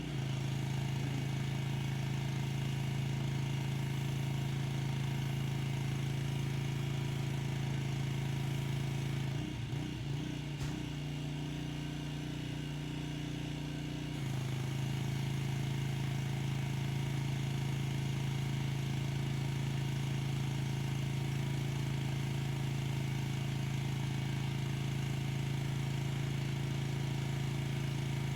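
Gasoline pressure washer engine running steadily. Its note changes for a few seconds near the middle, then settles back to the same steady running.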